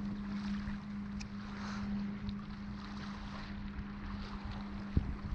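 Steady hum of a boat's motor, with wind rumbling on the microphone and a single knock about five seconds in.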